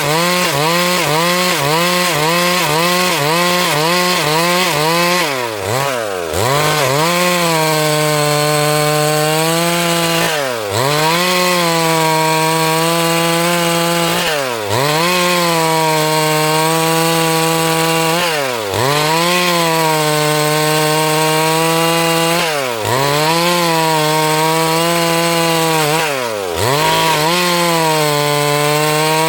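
Two-stroke chainsaw running at high revs while ripping a log lengthwise into planks. For the first few seconds its pitch wobbles about twice a second. After that the pitch holds steady but dips sharply and recovers about every four seconds, as the chain bogs in the cut and picks up again.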